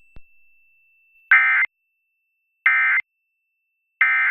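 Emergency Alert System end-of-message data signal: three short bursts of buzzy digital data tones, about 1.3 seconds apart, which mark the end of the alert.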